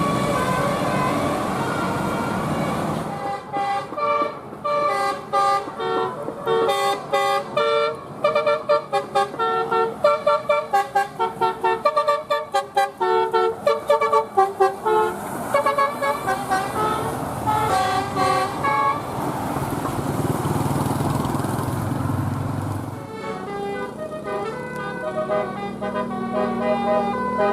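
Bus telolet horn, a basuri-type multi-trumpet air horn, playing a fast tune of short pitched notes. A steady rushing noise fills the first three seconds and returns about halfway through, with the notes carrying on over it.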